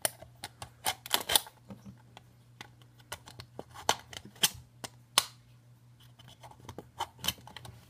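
Thin aluminium soda can being cut with a utility knife: irregular sharp clicks and crackles of the metal, several close together in the first second and a half and more scattered after.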